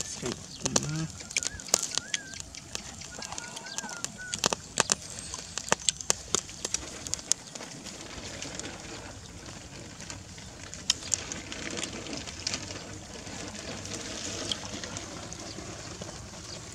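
Open fire of wood embers and straw crackling and popping under a rodent carcass as it singes: irregular sharp pops, thickest in the first half and again a little past the middle.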